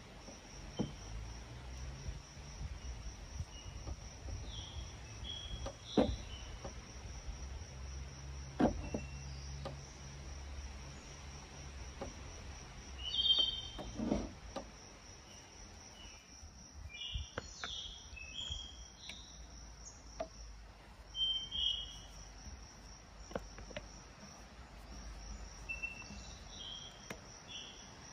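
A steady, high-pitched insect trill runs throughout, with short bird chirps scattered through it and a few soft knocks.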